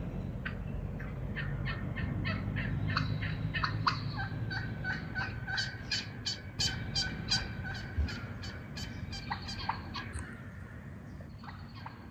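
A flock of wild turkeys calling: a long run of short, quick notes, a few a second, layered from several birds, thinning out near the end.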